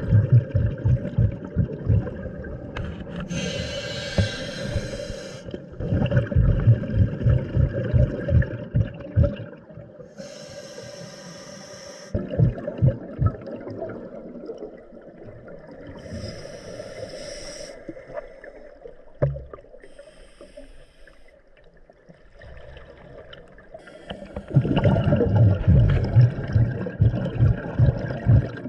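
Scuba regulator breathing recorded underwater: a hiss on each inhale, then a burst of low, rumbling exhaust bubbles on each exhale, repeating over several breaths.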